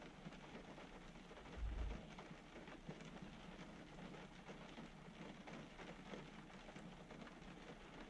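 Faint light rain falling on a truck's roof and windows, heard from inside the closed cab as a soft hiss with scattered small ticks. A low thump comes about two seconds in.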